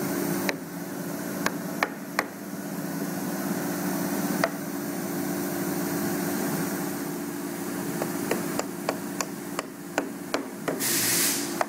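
Soft-faced mallet tapping tight-fitting dovetail joints of a wooden drawer to seat them, with a few scattered knocks and then a quicker run of taps near the end. A steady hum runs underneath.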